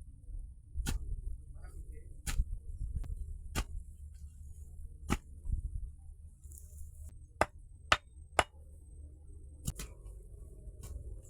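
About ten sharp, irregularly spaced strikes of a tool on wood, as in chopping or knocking timber for a shelter frame, three of them in quick succession a little past the middle. A steady low rumble runs underneath.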